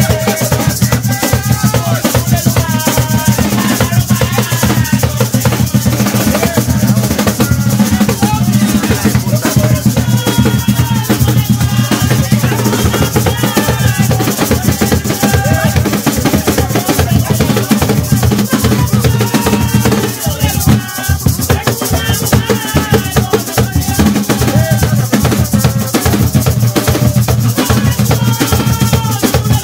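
Live Garifuna drumming on hand drums with rattling maracas, and voices singing over the rhythm, continuous and loud.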